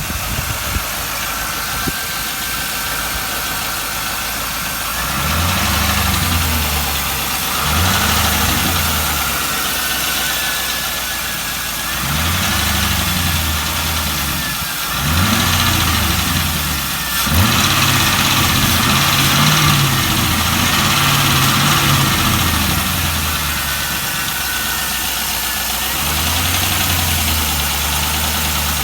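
1998 Camaro Z28's LS1 V8 with a Borla muffler, idling and revved up and back down several times, with a ticking, tapping sound through the exhaust burble. The owner suspects a lifter or rocker arm, though the car also has a known exhaust leak at the headers and logs a misfire on cylinder 1.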